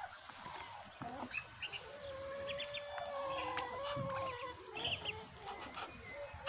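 Muscovy ducklings peeping in short, high chirps while they feed, with one longer, level call from a farm bird in the background through the middle.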